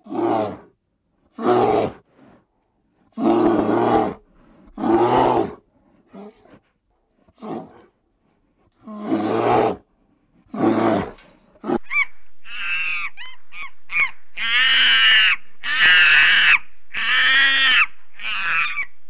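Animal calls: about eight separate loud, roar-like calls with silent gaps between them, then from about twelve seconds in a continuous run of higher pitched calls over a steady background.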